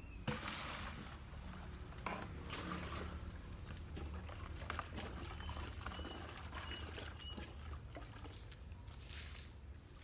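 Water being poured and splashed from buckets and a hand dipper while watering a garden: a loud splash just after the start, then more pours and splashes around two seconds in and near the end.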